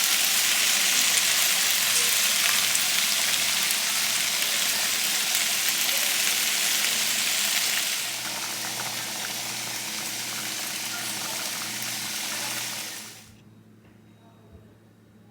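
Running water, a steady hiss that drops in level about eight seconds in and stops about thirteen seconds in.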